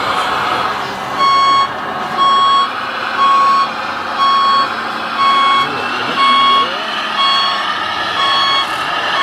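Reversing beeper of a radio-controlled model truck's sound module, starting about a second in and beeping eight times, about once a second, each beep a short steady tone, over a steady background noise.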